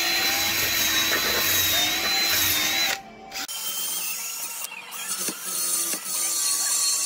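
Cordless drill spinning a wire wheel against the steel flange of a transmission pan, scrubbing off old gasket material. The motor whines steadily, drops out briefly about three seconds in, then runs again at a lower pitch.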